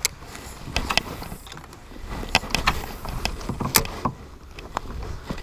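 Scattered clicks and knocks of fishing gear being handled aboard a kayak, over a low rumble.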